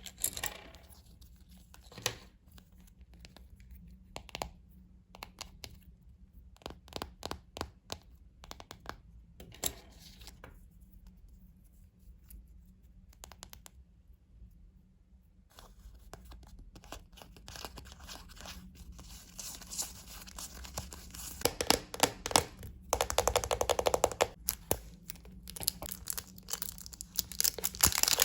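Crinkly wrapping from Kinder Surprise eggs and their toys being unwrapped and torn by hand, with small clicks and taps. It is sparse at first, with a quiet pause about halfway through, then turns into busier, louder crinkling and tearing over the last third.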